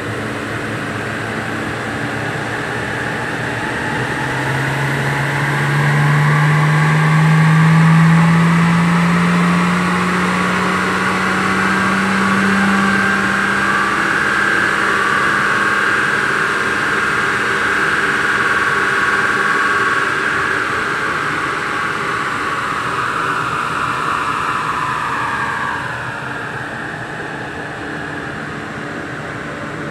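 Rover SD1 2300's straight-six engine running under load on a rolling road: from about four seconds in the engine note climbs steadily in pitch with a higher whine rising alongside it, and near the end the sound drops away as the run eases off.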